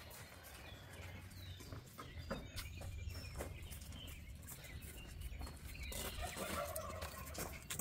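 Faint footsteps and dog paws scuffing and clicking on a concrete driveway as several large dogs walk, with a short bird chirp about a second in.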